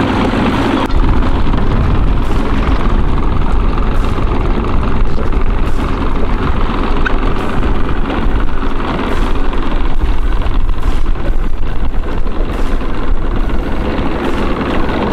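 Wind buffeting the microphone on an open boat: a dense, fluctuating low rumble that gets louder about a second in.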